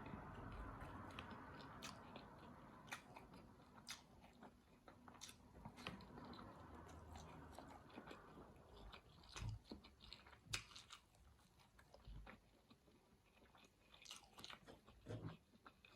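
Faint chewing of a large mouthful of food, heard as irregular soft clicks from the mouth with a few low thumps.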